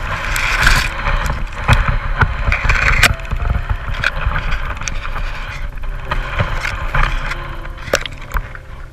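Handling noise from a camera being pushed through waterside weeds and twigs. It gives a constant low rumble with irregular scraping and sharp knocks as stems and branches brush and strike the housing.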